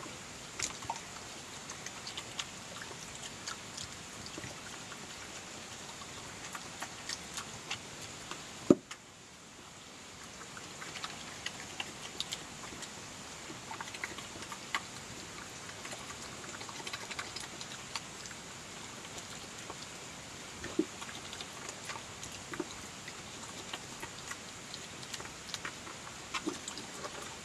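European badger chewing and snuffling at a pile of chips: a stream of irregular small clicks and smacks from its jaws, with one sharp knock about nine seconds in.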